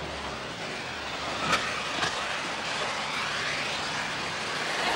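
Smoke-jetting rockets on a large rolling wheel, a steady hissing rush, with a sharp crack about one and a half seconds in and a smaller one half a second later.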